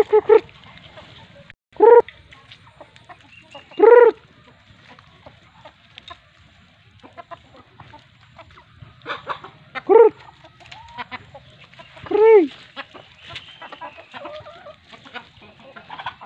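Domestic chickens clucking: a handful of short separate calls, the four loudest spread a few seconds apart.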